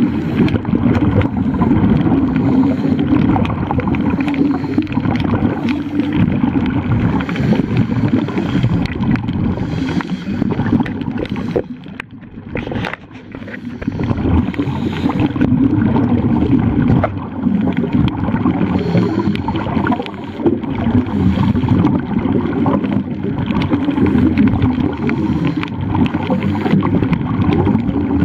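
Steady rushing and gurgling of water and bubbles heard through a submerged camera, with a brief quieter dip about twelve seconds in.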